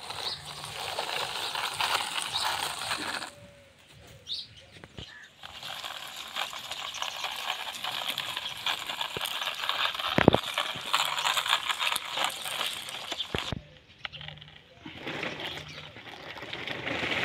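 Plastic toy tractor, trolley and loader pushed by hand over gravelly sand, their wheels crunching and rattling in stretches with short pauses between. There is a sharp knock about ten seconds in.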